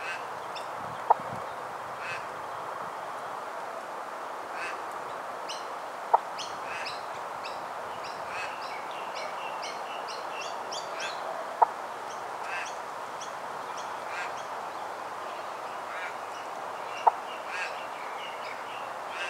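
Small birds chirping and twittering over a steady background hiss. Four times, about every five and a half seconds, a short sharp pip sounds, louder than everything else.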